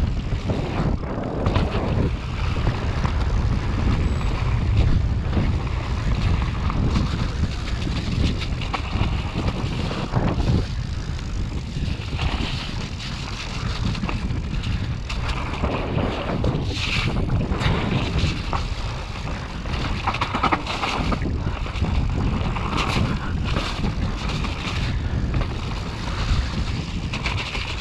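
Wind buffeting the microphone over the rumble, rattle and knocks of an e-mountain bike riding fast down a dirt trail.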